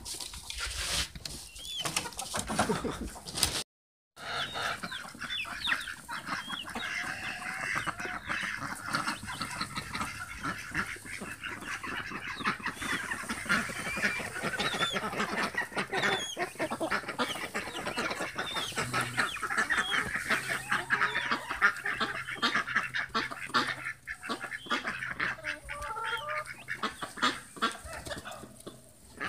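A flock of poultry calling, many short overlapping calls, with a brief dropout in the sound about four seconds in.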